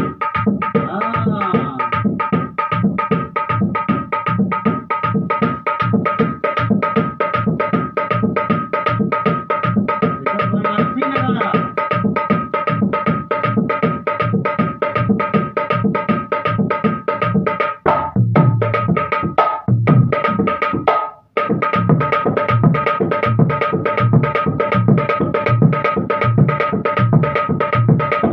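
Dholak, a double-headed barrel drum, played by hand in a fast, steady rhythm of about three to four strokes a second, with deep bass strokes under sharper treble slaps. The rhythm briefly breaks twice, about two-thirds of the way through.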